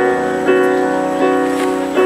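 Music with sustained keyboard chords, a new chord struck about every three quarters of a second.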